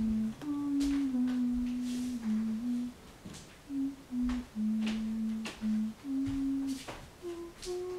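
A person humming a slow tune, with held notes stepping up and down and rising near the end. A few light clicks are heard in between.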